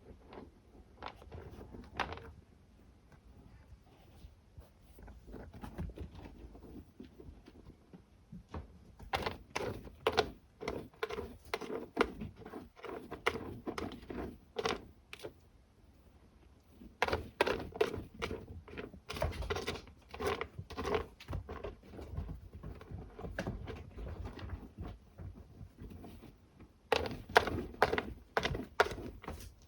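Kittens scratching and digging in cat litter: runs of rapid scrapes and gritty clicks in three long bursts with quieter pauses between.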